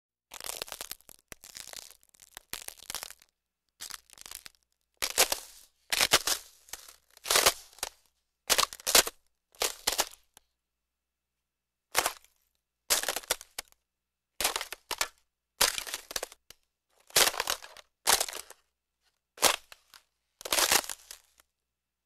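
Ice crackling and cracking in short bursts of crackles, roughly one burst a second with silence between, and a longer pause about halfway through.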